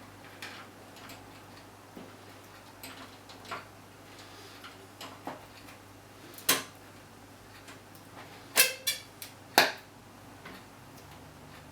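Hands working on computer hardware: scattered small clicks and taps, with three louder sharp clicks past the middle, one of them a quick rattle of several ticks.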